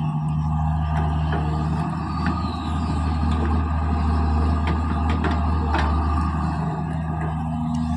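Diesel engines of a JCB 3DX backhoe loader and tractors running steadily, with a few sharp metallic clanks here and there.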